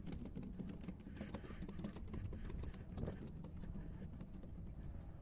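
Footsteps on the wooden planks of a pier, an irregular run of light knocks over a steady low rumble.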